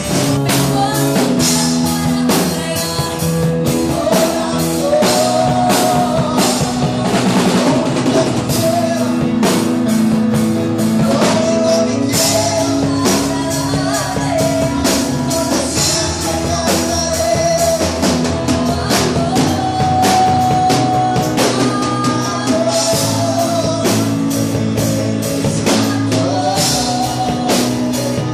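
Live Christian worship band music: a drum kit keeping a steady beat under guitar, with a singer's voice carried over it through the microphone.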